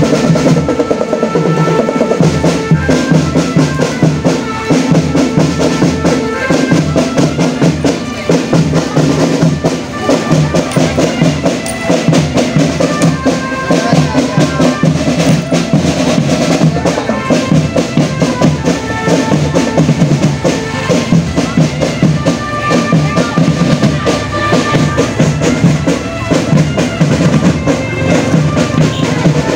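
Marching drum band playing: snare and bass drums keep a fast, dense beat with rolls, under a melody of short held notes.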